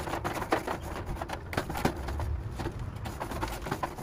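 Irregular clicks, knocks and scrapes of a utensil working on the metal grate of a hot gas grill, over a steady low rumble.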